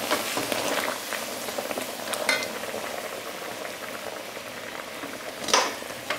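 Caramelized sugar and water bubbling and sizzling in a metal pan as a steel spoon stirs through it. Two sharper scrapes of the spoon against the pan stand out, about two seconds in and near the end.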